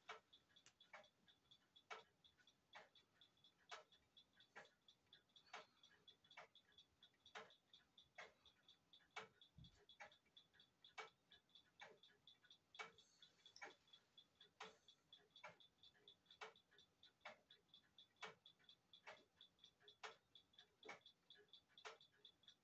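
Pfeilkreuz flip-number alarm clock's movement ticking faintly and steadily, with a louder tick about once a second and softer ticks between.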